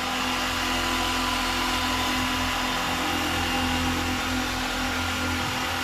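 Handheld machine polisher with a foam pad running steadily on the painted panel of a car, an even motor hum and whine with no change in speed. It is buffing the paint until the film of water and polish is gone.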